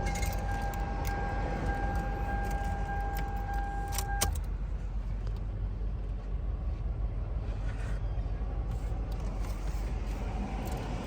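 Steady low rumble with scattered clicks and rattles of handling, and a steady high tone that cuts off suddenly about four seconds in.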